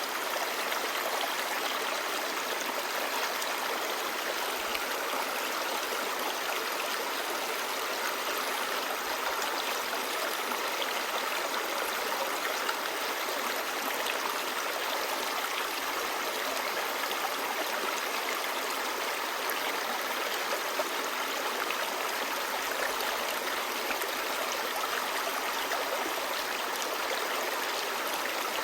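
A clear, shallow stream babbling over stones: a steady rush of running water.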